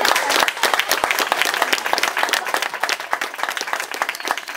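Audience applauding with many hands clapping, thinning out and getting quieter near the end.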